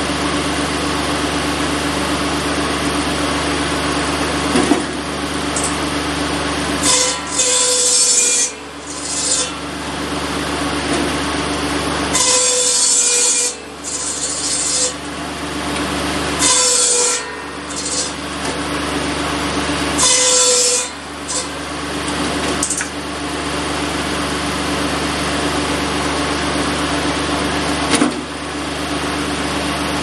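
Tractor-driven buzz saw, a large circular blade run off a Kubota B7100, running steadily and cutting through sawmill slabs several times. Each cut is a loud rasping hiss lasting a second or two; the first comes about seven seconds in, and the blade runs free for the last several seconds.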